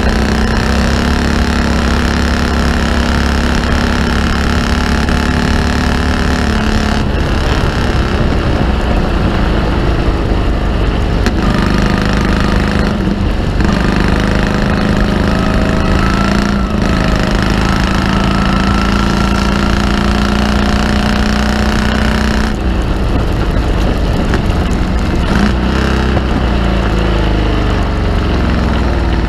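Morgan Super Aero three-wheeler's V-twin engine running hard at racing speed, heard from the open cockpit. The engine note shifts in pitch and dips briefly several times.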